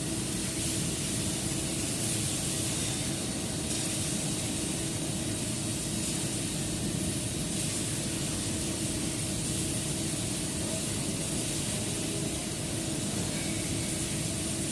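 CNC machine running steadily while cutting a groove profile: an even hiss over a constant hum, with no change in pitch.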